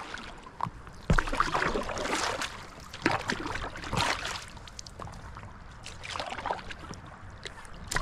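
Stand-up paddle strokes splashing through the water about a second apart, weaker after the first four seconds.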